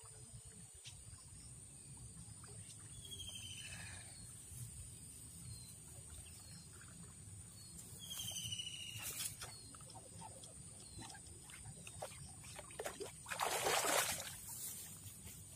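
Water splashing as a hooked eel is yanked out of the river, the loudest sound, about 13 s in. Under it a steady high insect drone runs throughout, with two short falling chirps earlier on.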